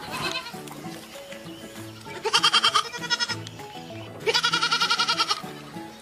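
A goat kid bleating twice, a short wavering bleat about two seconds in and a longer one about four seconds in, over background music with a slow low melody.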